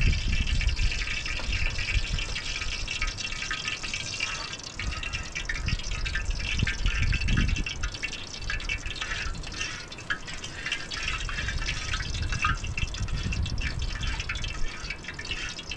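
Steady rush of running water with fine trickling ticks, and irregular low rumbles of wind on the microphone.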